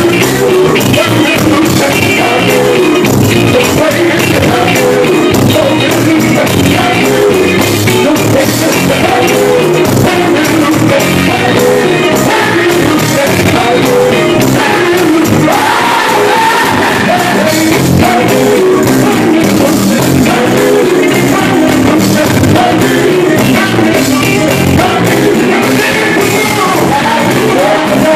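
Live gospel music: a male vocal group sings through microphones, backed by an electric guitar and keyboard band with a steady beat. The music is loud and continuous.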